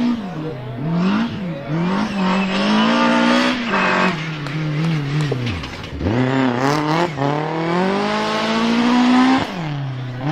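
Rally car engine pulling hard at high revs, its pitch climbing and dropping again and again with gear changes and lifts off the throttle. About halfway through the revs fall steeply, then climb for several seconds before dropping sharply near the end.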